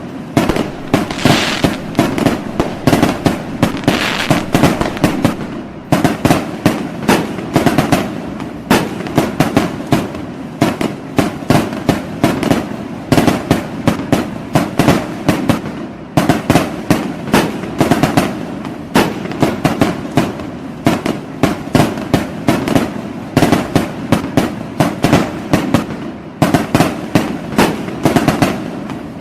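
New Year fireworks going off in a dense, continuous barrage: rapid crackling and banging, several sharp reports a second, without a break.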